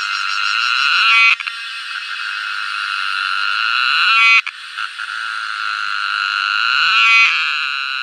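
Cicada singing: a loud, shrill, continuous buzz that swells over about three seconds, breaks into a brief stutter of rapid pulses, then starts again. This happens three times.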